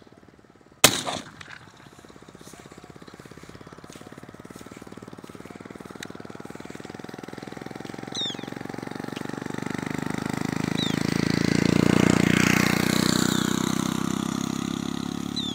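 A single 12-bore shotgun shot about a second in. A motor vehicle's engine then grows louder, peaks about twelve seconds in and fades as it passes, with a few short high bird calls over it.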